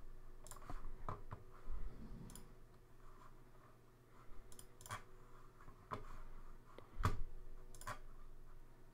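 Computer mouse clicking: a scattered handful of single, sharp clicks with pauses of up to a couple of seconds between them.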